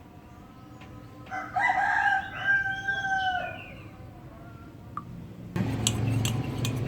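A rooster crows once, a call of several parts lasting about two seconds. Near the end, a spoon starts clinking against a glass as the mixture is stirred.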